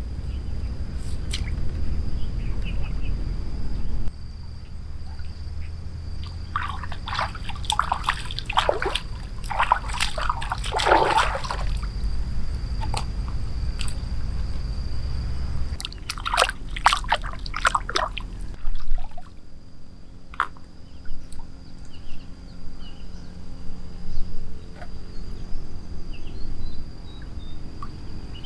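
Shallow muddy water sloshing and trickling as hands grope through it along the bottom, with two spells of busier splashing and dripping, one about a quarter of the way in and another just past the middle.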